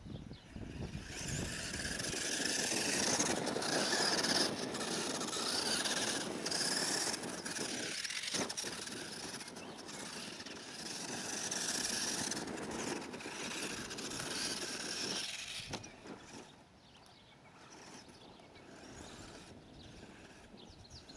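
Traxxas 1/16 Summit RC truck's brushed electric motor and gears whining with the throttle, tyres churning on dirt; the pitch wavers as it drives, and the sound fades about three quarters of the way through as the truck moves away.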